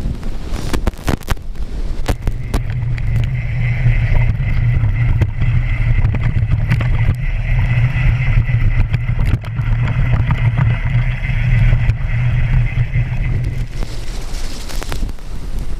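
Mountain bike riding fast over rough moorland track: sharp knocks and rattles from the bike over the first few seconds, then a steady low hum from the knobbly tyres rolling on the ground, with rumbling wind on the action camera's microphone.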